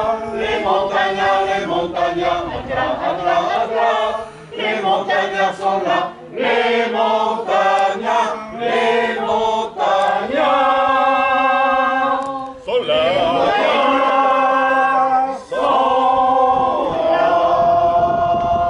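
A group of people singing together unaccompanied, several voices in unison, in short phrases at first and then with longer held notes in the second half.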